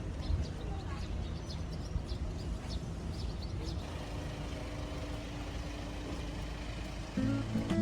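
Steady low rumble of outdoor background noise, with a few faint high chirps in the first few seconds. Music comes in near the end.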